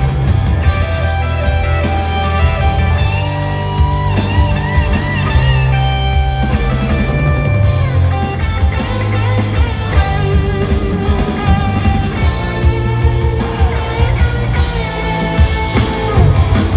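Live rock band playing in an arena: electric guitars with held, wavering notes over bass and drums, heard from the stands.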